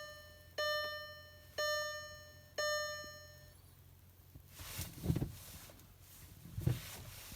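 Volkswagen TDI's in-car warning chime dinging about once a second, each ding fading, three more times before it stops. A couple of soft rustling noises follow near the end.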